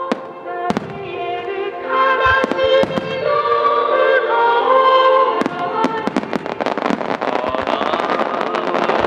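Fireworks shells bursting and crackling over loud recorded music. There is a single bang about a second in, and from about halfway through a dense run of crackling bursts.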